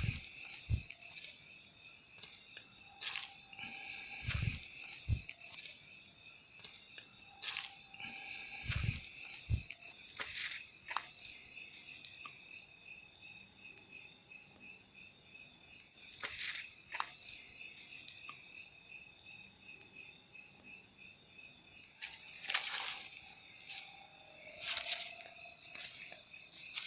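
A night chorus of crickets and other insects trills steadily in several high bands. Footsteps crunch now and then, and there are a few low thumps in the first ten seconds.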